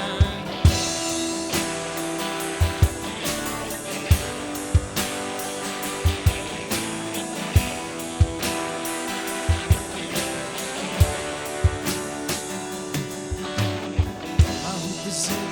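Live worship band playing an instrumental passage: strummed guitar over a steady drum-kit beat with regular kick-drum hits, no singing.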